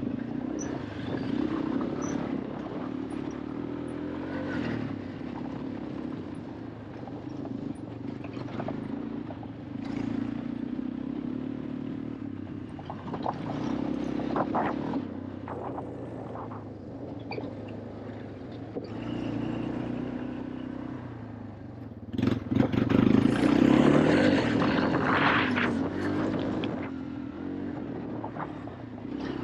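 Small off-road vehicle engine running under changing throttle as it is driven over rough ground, with clattering and knocks. About two-thirds of the way in it revs up and gets louder for a few seconds, with heavier rattling.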